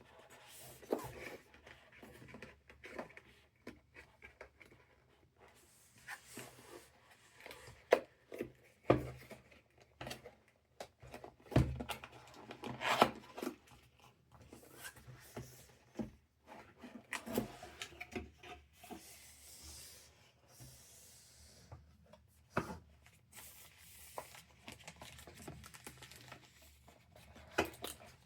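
Keyboard packaging being handled and opened: irregular rubbing and rustling of cardboard and wrapping, with scattered knocks and clicks as the box and its contents are moved and set down.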